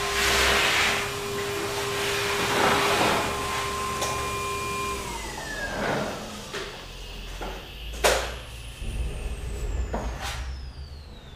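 Shop vacuum running, with whooshing sweeps as its hose is passed over the bonnet, then switched off about five seconds in, its motor whine falling as it winds down. Two sharp knocks follow, and a high whine falls slowly near the end.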